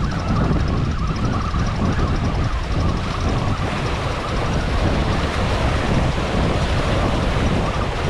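Waves washing and splashing over the jetty's rocks, with wind buffeting the microphone.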